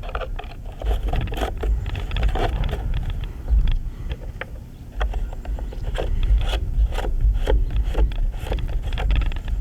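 Scraping, rubbing and irregular clicks of a Stihl chainsaw's bar and chain being handled while the chain tension is checked, over a low rumble. The saw's engine is not running.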